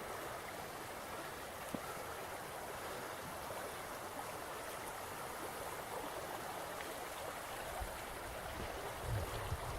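Steady rushing of a flowing stream, an even wash of water noise. A low rumble comes in near the end.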